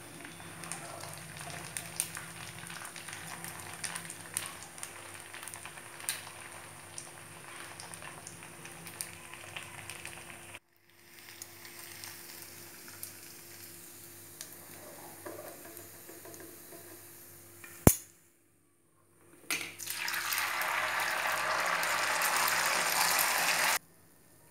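Malpua batter pancakes frying in hot ghee in a shallow pan: a steady sizzle with light clicks of metal tongs against the pan. The sound breaks off twice at edits, with one sharp click before a short silence. Near the end comes a louder, fuller sizzle, which stops abruptly.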